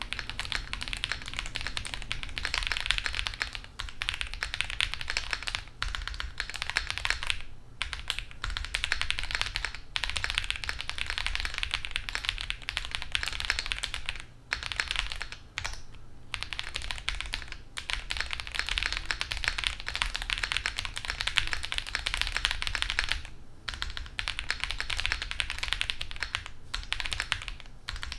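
Typing on a CIDOO V65 65% aluminium mechanical keyboard with factory-lubed linear switches (nylon housings, POM stems) on a polycarbonate plate with Poron foam dampening: a fast, steady patter of keystrokes broken by short pauses every few seconds.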